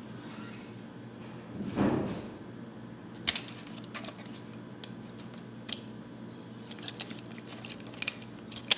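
Plastic action figure being handled and posed: scattered sharp clicks and taps of its hard plastic joints and parts, the loudest near the end, with a brief louder rustle of handling about two seconds in.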